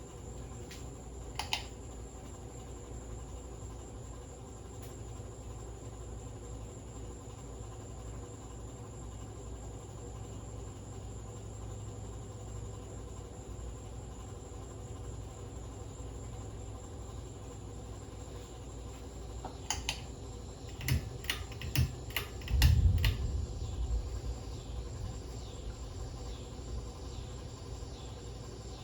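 Harbor Breeze Lakeside II ceiling fan running slowly with a steady motor hum and a thin high whine, its slowness caused by a bad capacitor. A single click comes early, and a cluster of sharp clicks with a low thump comes about twenty seconds in.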